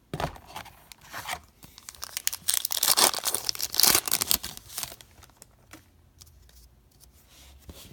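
Trading-card pack wrapper being torn open and crinkled, a run of tearing and crinkling that is loudest about three to four seconds in, then fades to quieter rustling as the pack is handled.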